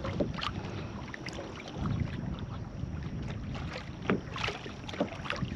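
Wind buffeting the microphone and small waves moving around a Vibe Sea Ghost 130 kayak, with a few light knocks, once about half a second in and again near the end.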